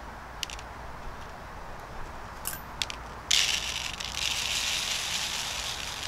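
A few light clicks from tweezers and the plastic filter tube, then about three seconds in, activated charcoal granules pour out of an air-compressor filter cartridge onto a paper plate with a steady gritty hiss that fades out right at the end.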